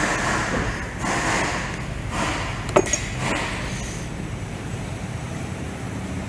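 Hand tools and sockets clinking and shifting in a metal tool-chest drawer, with one sharp metallic clink just before three seconds in, over a steady low workshop hum.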